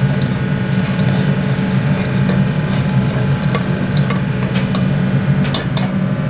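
A steel ladle stirring and scraping thick misal gravy in an aluminium pot, with scattered sharp clicks of metal on the pot, over a steady low hum.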